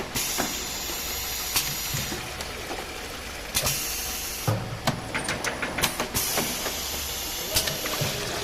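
Small water filling machine running: a steady low hum, repeated sharp clicks and clacks, and stretches of hissing air that start and stop several times.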